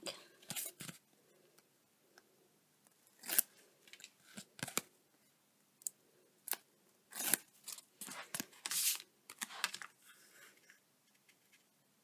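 Release liner being peeled off double-sided tape on the back of a cardstock panel: a scatter of short, irregular rasping peels and paper rustles.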